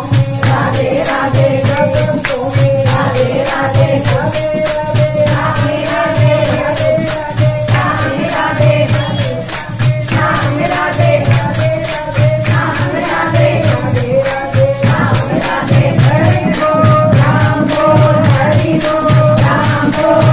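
Amplified live folk music: a woman singing a melody into a microphone, over a steady drum beat with jingling tambourine-like percussion keeping time.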